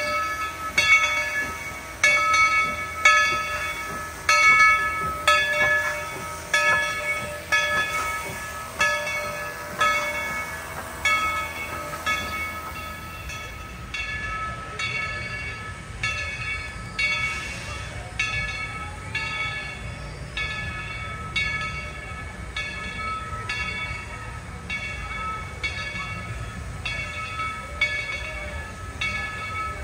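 Steam locomotive bell on former White Pass & Yukon engine No. 70 ringing steadily, about one stroke a second, each stroke fading before the next. About halfway through the strokes come a little faster, over a low rumble from the running train.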